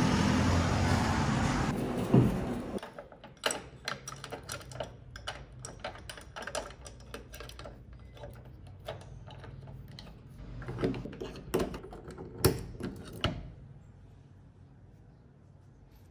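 Street traffic noise for the first couple of seconds. Then a padlock on a metal door hasp is worked with a key: a long run of small metallic clicks and rattles, with a few louder clacks near the end.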